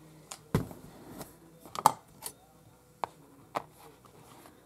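A round metal tin set down on a cutting mat and opened, then a small metal nameplate taken out of it: a low thump about half a second in, a sharp click near the middle, and a few lighter clicks after.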